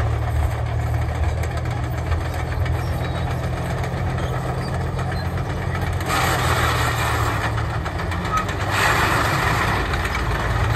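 Churchill Mk III tank's Bedford twin-six petrol engine running as the tank drives, a steady low hum.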